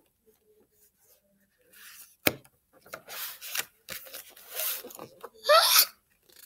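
Paper pages of a hardcover picture book being handled and turned by hand: rustling and rubbing, with one sharp tap a little after two seconds in. A brief voice sounds near the end.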